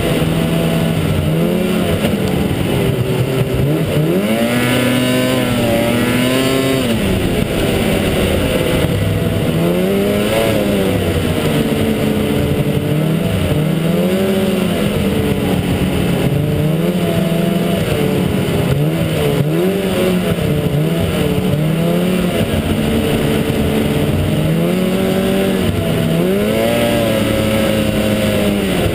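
Snowmobile engine heard from on board while riding, its pitch rising and falling again and again as the throttle is opened and eased off.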